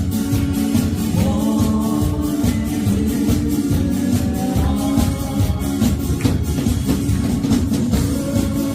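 Upbeat Korean dance-pop song with a steady beat and bright hand-percussion, with a singing voice over it at times.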